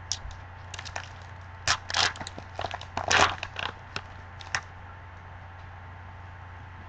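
Foil trading-card pack wrapper crinkling and tearing open in gloved hands: a run of sharp crackles for the first four and a half seconds, then only a faint steady hum.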